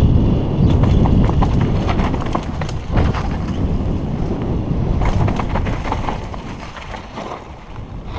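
Wind buffeting a helmet-mounted camera microphone over the rumble of tyres on a dirt trail, while the chain and frame of a Kona Operator downhill mountain bike rattle and clack over bumps. The wind rumble eases in the later part.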